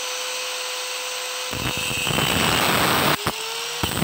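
Handheld angle grinder with a cut-off disc: its steady whine as it runs free, then about a second and a half in the disc bites into the steel of a T-handle socket wrench and the sound turns to a louder, grating cutting noise. The cutting breaks off briefly just after three seconds and starts again near the end.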